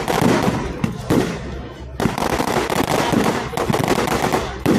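Large wood bonfire crackling and popping densely, with sharp loud cracks about two seconds in and again near the end.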